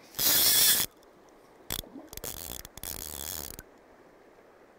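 Fly reel's click-and-pawl drag ratcheting while a hooked trout is played: a loud burst of rapid clicking in the first second, then shorter runs of clicking from about two to three and a half seconds in.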